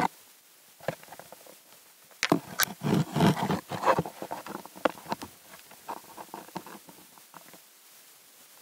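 Close rustling and scraping of plant leaves and stalks, with sharp knocks and a loud burst of rubbing about two to four seconds in, fading to scattered soft clicks.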